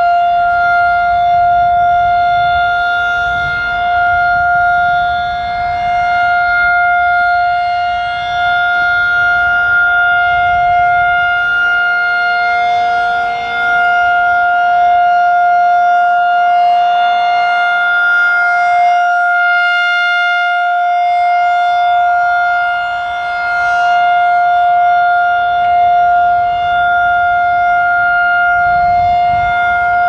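Federal Signal 2001-SRN electronic outdoor warning siren sounding a steady Full Alert tone, one unwavering pitch. Its loudness rises and falls every several seconds as the rotating speaker horn sweeps toward and away.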